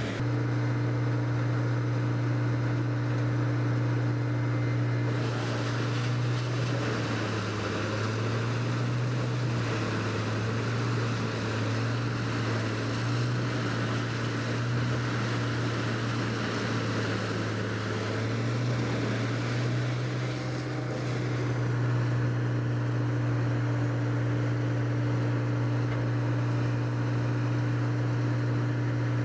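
A heavy wood-processing machine's engine running steadily under a rushing noise. Its pitch sags and wavers from about six seconds in, then steadies again from about twenty-one seconds.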